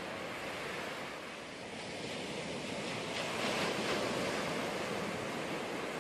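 Ocean surf washing onto a sandy beach, a steady rushing wash that swells louder about three seconds in.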